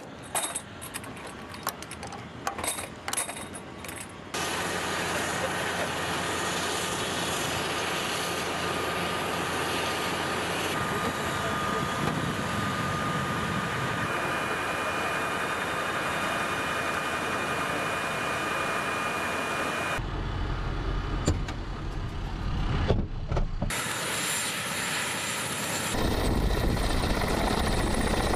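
Sharp metallic clicks as flare cartridges are pushed by hand into a Ka-52 helicopter's countermeasures dispenser. Then a steady whine and hiss of turbine engines running, and toward the end a heavier low rumble of the helicopter with its rotors turning.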